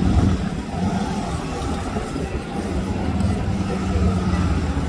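Harley-Davidson Road Glide's V-twin engine running at low revs while the motorcycle is ridden slowly through a tight cone course, the engine note swelling a little near the end.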